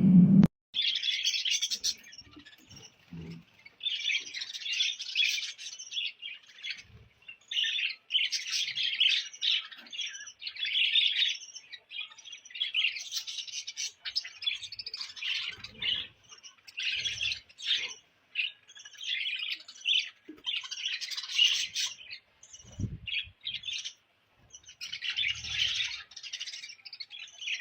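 Bird calls: rapid, high-pitched chirping and squawking that comes in repeated bursts a second to a few seconds long, separated by short pauses.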